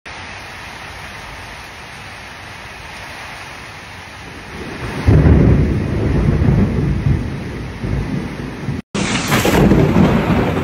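Heavy rain falling steadily, then about five seconds in a loud, low rumble of thunder breaks in and rolls on for several seconds. After a short break, strong wind and driving rain rush loudly.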